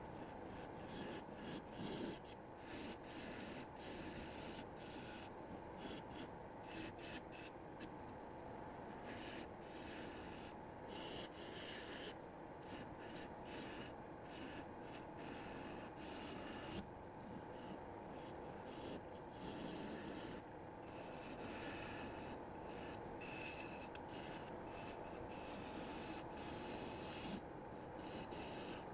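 Wood lathe running while a turning tool cuts the spinning wood of a mallet blank, giving a continuous scraping, rasping sound over a steady tone. The wood is being roughed out to shape.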